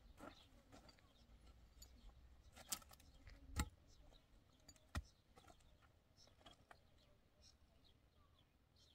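Near silence, with a few faint, sharp clicks or knocks; the loudest comes about three and a half seconds in.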